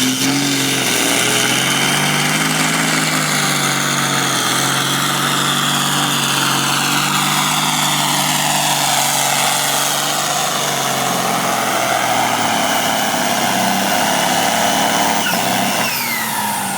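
Competition pulling tractor's engine held at high revs under load, loud and steady with a high whine above it. The revs ease down late on.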